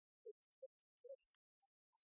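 Near silence, broken only by a few faint, very short blips.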